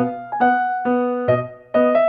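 Background music: a piano or electric piano playing a melody of separate struck notes, a few per second.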